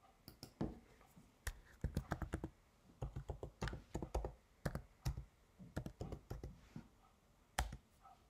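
Typing on a computer keyboard: runs of quick keystrokes with short pauses between them, and one louder single stroke near the end.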